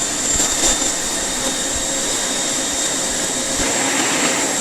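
Vacuum cleaner running steadily: a high, even motor whine over the rush of air.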